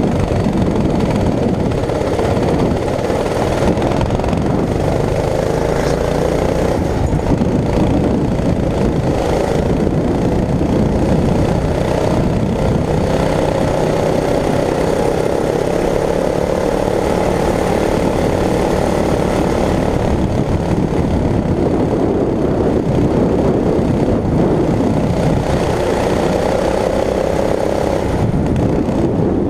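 Club rental kart engine running hard around a track, heard from the driver's seat, its pitch rising and falling gently as the kart speeds up along the straights and slows for the corners.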